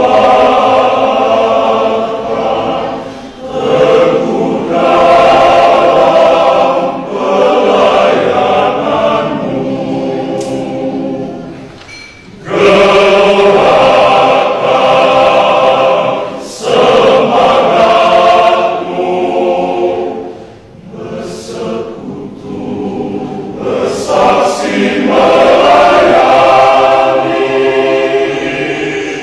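Men's church choir singing a hymn in parts, in long phrases broken by short pauses for breath, the deepest of them about twelve seconds in.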